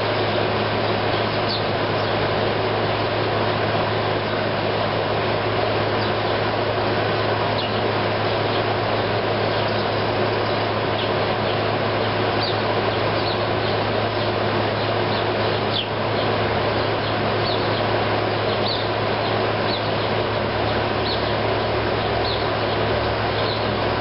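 Air conditioner running steadily, a low hum under an even noise, with short faint sparrow chirps scattered over it.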